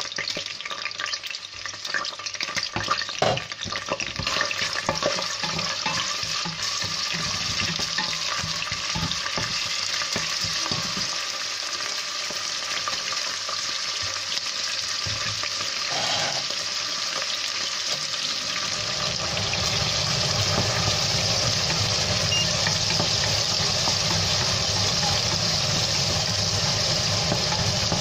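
Garlic and green chillies sizzling in hot olive oil in a stainless steel pot, stirred with a wooden spoon, with a few light knocks in the first several seconds. A low hum joins in about two-thirds of the way through.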